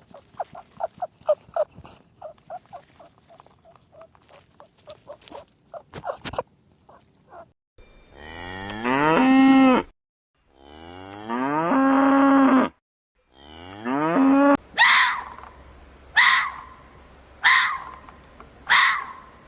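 Three long cattle moos, each falling in pitch, come in the middle. Before them is a run of quick, short, higher calls. After them come short sharp animal calls about every second and a half.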